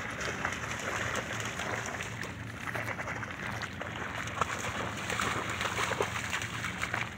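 Dogs wading and splashing through shallow water, a continuous scatter of splashes and sloshes.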